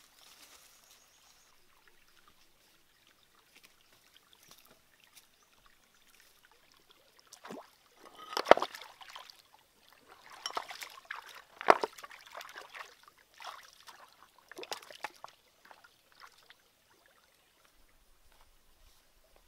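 Water splashing and sloshing in a shallow rocky stream as hands work among the stones, in irregular bursts starting about seven seconds in and lasting about eight seconds, with two sharp loud hits among them.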